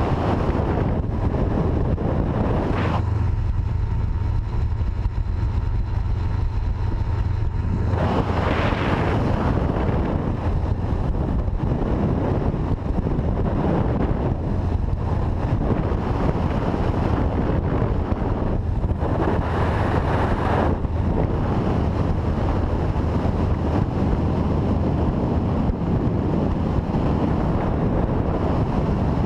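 A boat's 90 hp outboard motor running steadily at speed, a constant low drone under heavy wind noise buffeting the microphone. The wind rush swells louder about eight seconds in and again around nineteen seconds.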